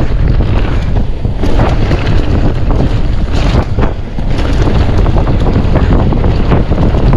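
Loud wind buffeting the microphone of a moving mountain bike, with many sharp clicks and rattles from the bike running over rough trail.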